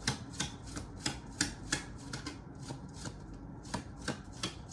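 Tarot cards being handled on a table: about ten light, sharp taps and slaps of cards at an uneven pace, with a pause of a second or so in the middle.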